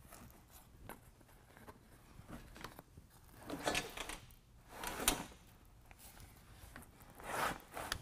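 Bestop soft-top fabric being handled, its window panel's edge sliding along a plastic extrusion: three scraping swishes with a few light clicks between them.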